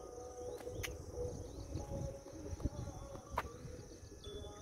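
Insects chirring in a steady high-pitched chorus, over a low rumble, with two sharp clicks: one about a second in, one about three and a half seconds in.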